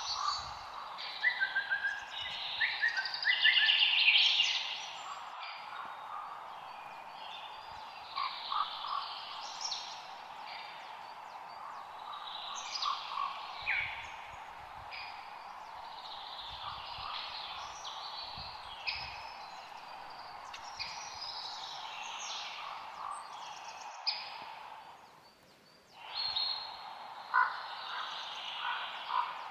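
Forest ambience: many birds chirping and trilling, with overlapping calls, over a steady background hiss. The whole sound briefly fades nearly out and returns about three quarters of the way through.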